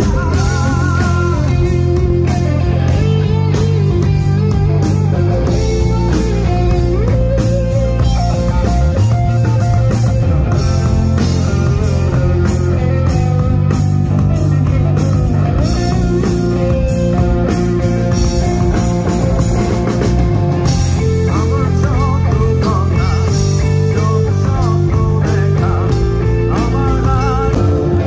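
Rock band playing loud on stage: electric guitars over bass and drums, the low notes changing every second or two, with lead guitar notes bent and wavering now and then.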